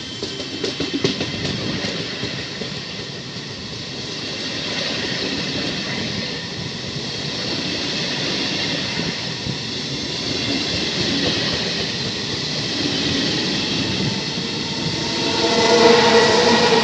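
Passenger train coaches passing through a station at speed: a steady rumble of wheels on rail, clattering most in the first couple of seconds. Near the end it grows louder and a steady ringing squeal joins in.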